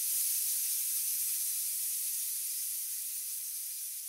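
A steady, high-pitched hiss that slowly fades.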